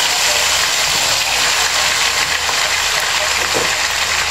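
Marinated beef slices sizzling loudly in hot oil in a wok, a steady frying hiss.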